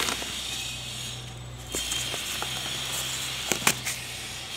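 Corrugated cardboard box flaps being pulled open and handled: rustling and scraping with a few sharp clicks, two of them close together near the end.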